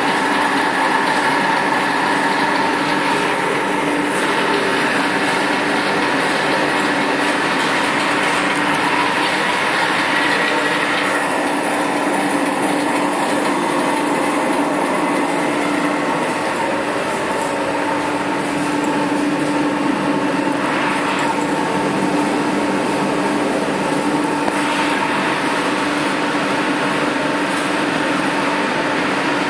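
A TTC-1200 tape casting machine's drive running steadily while it casts a ceramic film: a continuous mechanical drone with a steady hum and a higher whine, whose tone shifts slightly a few times.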